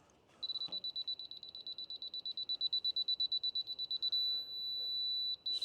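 Laser level receiver beeping rapidly in a high tone, then switching about four seconds in to a steady unbroken tone, its on-grade signal: the sawmill bed reads level.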